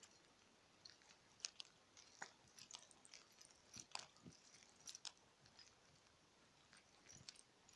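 Near silence with faint, irregular small clicks and crackles, a few at a time and unevenly spaced.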